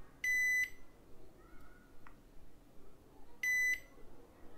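Digital multimeter in continuity mode beeping twice, short steady high beeps about three seconds apart, as the probes find continuity to ground on the board's filters while they are checked for a short.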